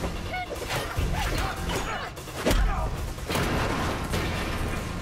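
Fight-scene sound effects: a run of blunt hits and thuds from a fight with a wooden staff and batons, the heaviest thud about two and a half seconds in, over a dramatic music score.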